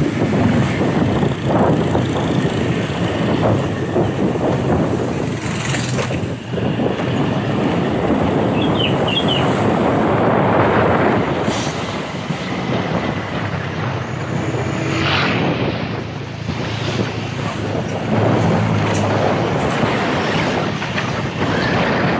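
Motor scooter ride: a small motorcycle engine running steadily under wind rushing over the microphone.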